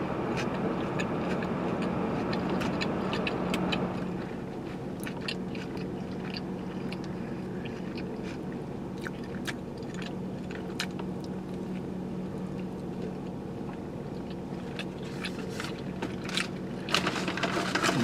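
Chewing and wet mouth clicks of someone eating a burger, over the steady hum of a car sitting with its engine running and the air blowing; the hum drops a little about four seconds in.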